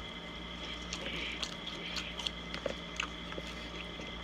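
Close-miked chewing of a salad, with small crisp crunches and wet mouth clicks scattered through it.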